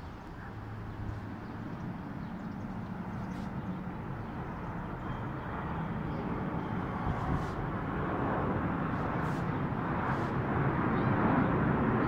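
Jet engines of an Airbus A320 airliner flying low overhead on approach: a steady rushing jet noise with a low hum, growing steadily louder as the aircraft nears.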